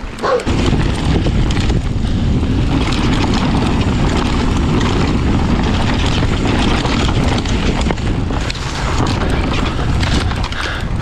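Mountain bike rolling fast down a rough trail: a steady clatter and rumble of tyres and bike over stones and ground, with wind rumbling on the microphone.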